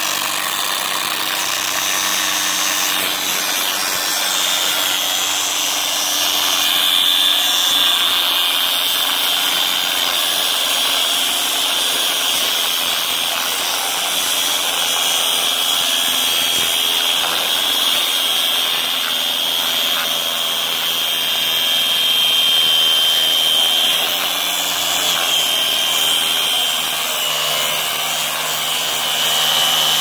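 DeWalt angle grinder with a cut-off wheel grinding continuously through the steel shackle of a Kryptonite U-lock, with a loud, steady high whine.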